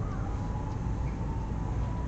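Steady low outdoor background rumble, with a faint thin high tone running through it.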